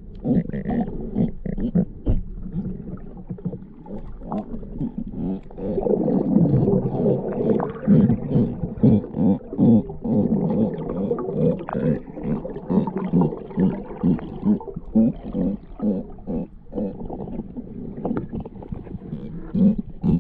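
Galapagos sea lions calling underwater: a rapid, irregular string of low barks and growls, busiest about midway through.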